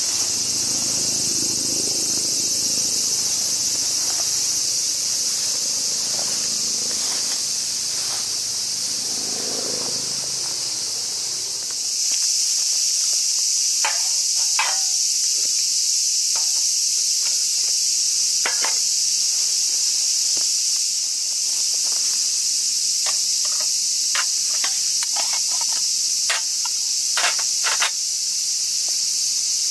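Steady, high-pitched insect chorus. From about halfway, a scatter of short light metal clinks as a metal mug, a lidded pot and an alcohol stove are set down on a stainless-steel heat-shield table.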